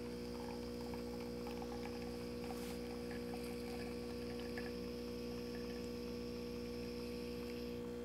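Breville Barista Express espresso machine's vibratory pump running during a shot extraction: a steady, even hum.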